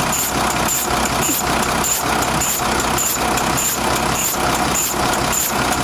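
Nissan FE6 diesel engine idling steadily, with a regular pulsing hiss and tick repeating about every 0.6 seconds over the engine's rumble.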